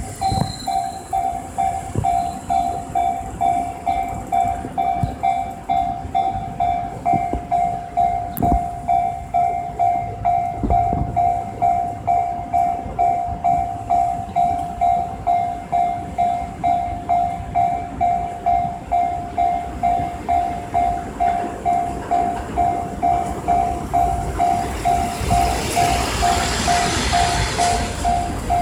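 Japanese level-crossing warning bell ringing in a fast, even rhythm. Over the last few seconds the rushing noise of the JR Haruka limited express approaching the crossing swells up under it.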